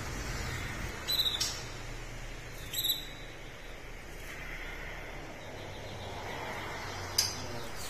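Caged red canary giving three short chirps spread over several seconds, over a low steady background hum.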